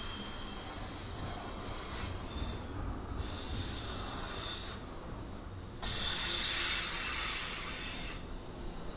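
Freight train rolling past with a steady low rumble, joined by bursts of high hissing about three seconds in and, louder, around six seconds in.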